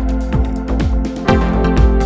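Background music with a steady drum beat, about two beats a second, over held chords.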